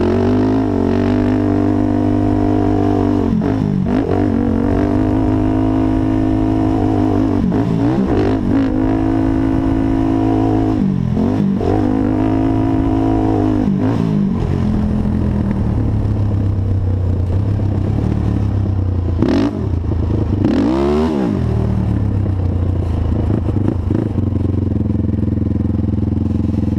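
Honda TRX450 quad's single-cylinder four-stroke engine revving hard, the throttle chopped and reopened about every three to four seconds. It then runs steadier at lower revs, with one quick dip and blip of the throttle about two-thirds of the way through, settling to a steady lower note near the end.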